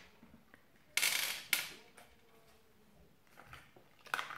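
Jelly beans rattling in a cardboard Bertie Bott's Every Flavour Beans box as it is shaken and a bean is picked out: two short bursts about a second in, then fainter rattles near the end.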